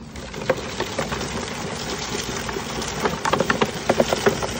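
Gardena push leaf collector rolling over lawn, its wheel-driven brush roller sweeping wet leaves into the bag with a steady whirring rustle. From about three seconds in, a run of sharp clicks and knocks as horse chestnuts and their hulls are flung into the bag.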